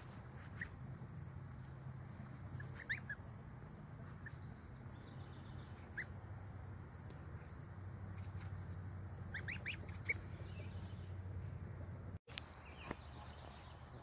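Ten-day-old goslings peeping: short rising peeps, some single and two quick runs of three or four, about three seconds in and again near ten seconds. Under them run a steady low hum and a faint high ticking, about two or three a second.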